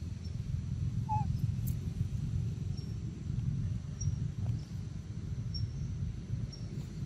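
Outdoor forest ambience: a steady low rumble, with faint short high bird chirps every second or so and one brief lower call about a second in.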